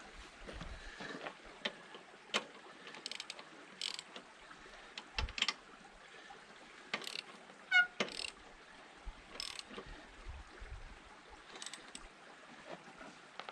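Half-inch-drive socket ratchet clicking in short runs as the excavator's track roller bolts are run in and tightened, with scattered metal clinks. About eight seconds in, a single ringing metal clink is the loudest sound.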